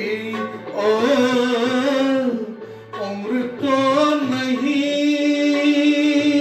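A man singing a melodic song into a handheld microphone over a music backing track, holding long sustained notes with slight waver and sliding between pitches, with a brief drop in the middle between phrases.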